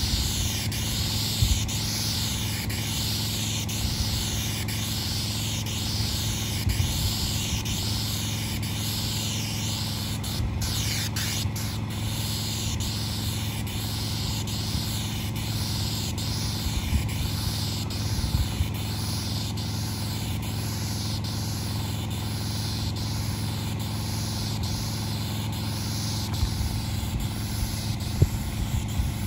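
Hiss of asphalt sealcoat spraying from a hand-held spray wand, swelling and fading in a steady rhythm about once a second, over the steady hum of the spray rig's pump motor.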